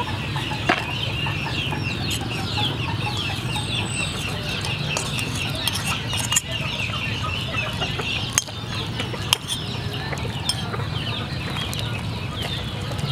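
Chickens in the yard clucking and cheeping, a rapid run of short high chirps that goes on without a break. A few sharp clicks come from utensils at the cooking pot.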